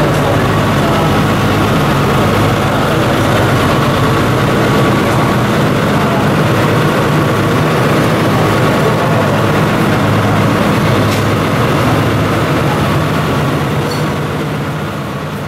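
Diesel engine of the Botchan Ressha, a replica steam locomotive, idling steadily at standstill. The sound fades out near the end.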